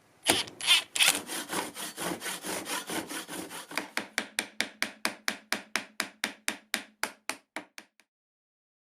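A hand tool worked back and forth on wood in quick, even strokes, about three or four a second, with a few louder knocks at the start. The strokes stop about eight seconds in.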